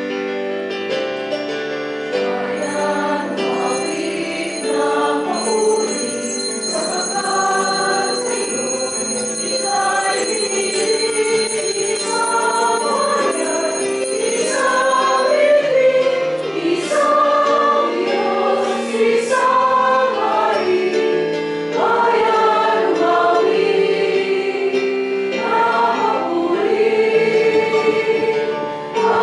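A group of voices singing a hymn with keyboard accompaniment: the opening hymn as the priest comes in.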